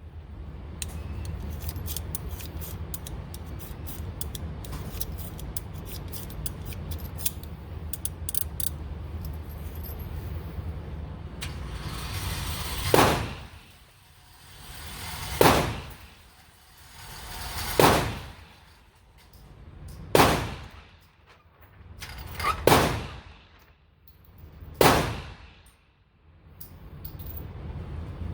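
A steady low hum with scattered clicks, then a run of sharp, loud shots at an indoor range, about one every two and a half seconds.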